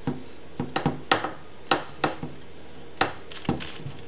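Aluminium frame parts of a Creality Falcon laser engraver clicking and clinking as they are fitted together by hand: about ten sharp, irregular knocks.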